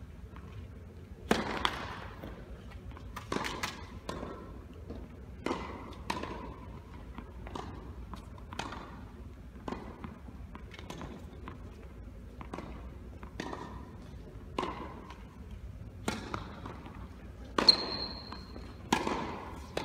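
Tennis ball strokes and bounces echoing in a large indoor hall: a sharp crack every second or two, each with a short ringing tail, and a brief high squeak near the end.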